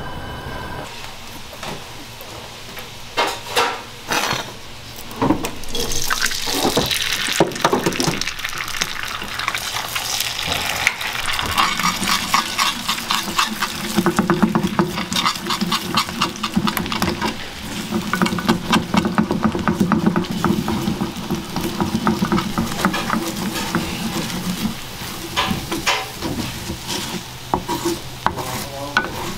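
Beaten eggs frying in a hot oiled rectangular pan over a gas burner, sizzling and crackling as they are stirred with chopsticks and then scraped and scrambled with a wooden spatula. A few sharp clicks sound about three to five seconds in, and a low steady hum runs under the middle stretch.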